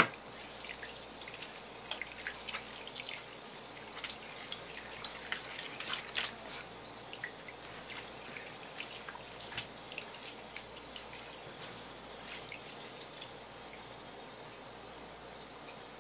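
Tap water running from a flexible hose onto a pufferfish and a wooden cutting board, with irregular splashes and patters as hands rub the fish clean under the stream. The splashing is busiest in the first ten seconds or so and thins out near the end.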